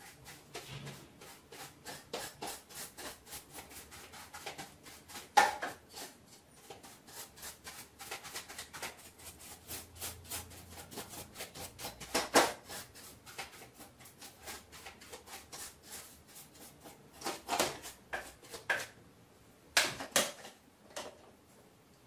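A paintbrush scrubbing the plastic underside of an iRobot Roomba 671 robot vacuum to clear dust and hair: a fast, steady run of short scratchy strokes, broken by a few louder knocks.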